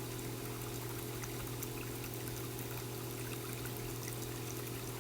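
Steady flowing, trickling water over a low steady hum.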